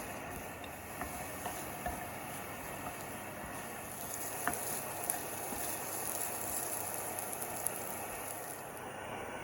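Chicken teriyaki sizzling steadily in a frying pan, with scattered small pops and crackles.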